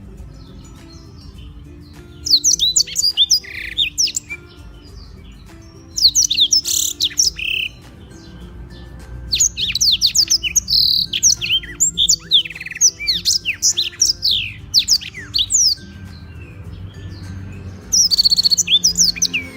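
Black-throated canary singing in bouts of fast, high, sweeping trills and chatter, four bursts with short pauses between, over faint background music.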